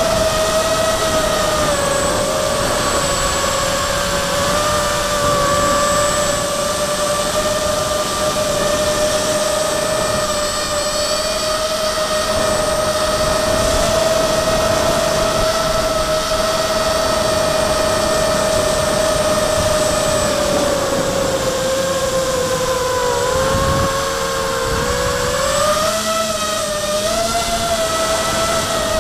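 Brushless motors and propellers of an MXP230 quadcopter whining steadily in flight, heard from on board. The motors are driven by Afro 12A ESCs flashed with BLHeli and OneShot125. The pitch dips for a few seconds about three-quarters of the way through, then wavers briefly near the end.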